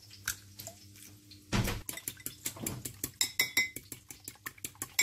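Eggs being beaten in a glass bowl: a utensil clicks rapidly against the glass, about six taps a second, starting with a louder knock about a second and a half in.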